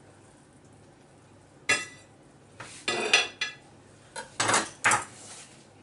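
Carving fork and kitchen knife clinking and scraping against a porcelain plate as slices of pork roast are put onto it, with a few knocks as the utensils are laid down. The sharp clinks come in a string starting about two seconds in, with the loudest near the middle and again near the end.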